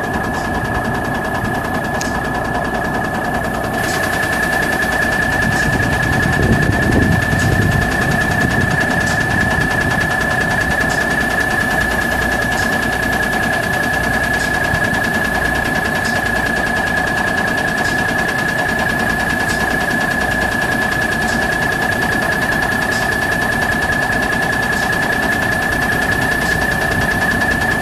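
Cummins six-cylinder turbo diesel engine of a 1987 Volvo White Autocar dump truck idling steadily, with a steady high-pitched whine over it. A louder low rumble swells briefly about six to eight seconds in.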